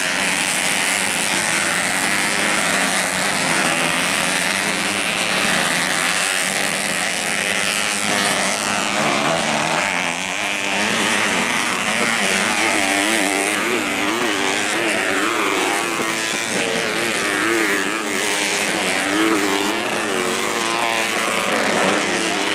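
Several racing motorcycles with modified underbone (bebek) engines running hard on a motocross track. The engine pitch keeps rising and falling as the riders throttle on and off through corners and jumps.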